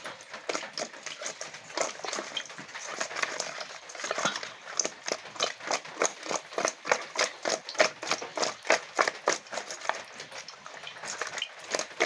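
Hands rubbing salt and turmeric into raw tengra catfish in a bowl: a quick, uneven run of wet slaps and clicks, several a second.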